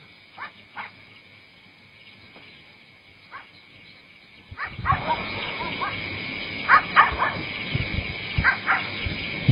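Short, high animal calls, a few at a time, faint at first. About four and a half seconds in, a steady hiss starts and the calls come louder and closer together.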